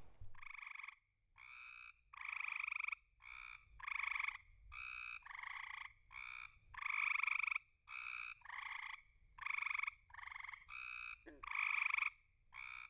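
Frog song: short trilled calls, each about half a second long, repeated a little more than once a second.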